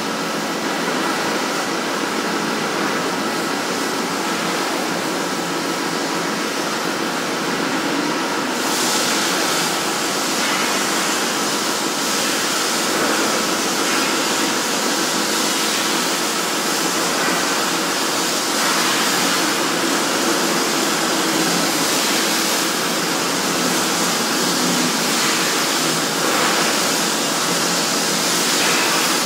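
Large CNC gantry plasma cutter cutting steel plate: the plasma arc gives a loud, steady hiss, which turns harsher and brighter about eight seconds in.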